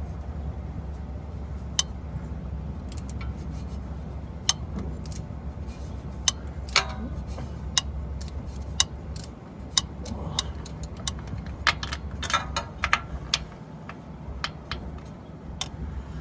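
Metal hand tools clicking and clinking, a wrench and socket handled while working the starter bolts, as irregular sharp ticks that come more often in the second half, over a steady low hum.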